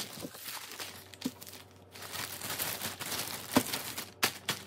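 White plastic mailing bag crinkling and rustling as a folded T-shirt is pushed into it and the bag is handled, with a few light ticks.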